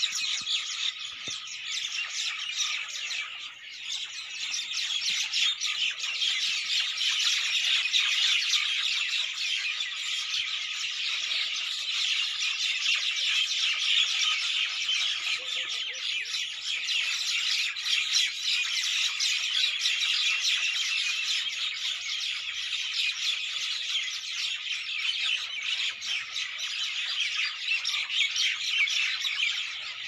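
Many birds chirping and calling at once in a dense, unbroken chorus that stays at an even level.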